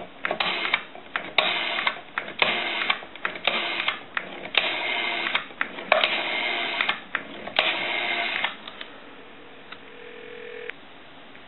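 Northern Electric Galion rotary telephone dial being wound and released for seven digits, each one a short burst of whirring and clicking as the dial spins back and pulses the line, at normal speed now that the slow dialing has been repaired. A faint steady tone follows near the end.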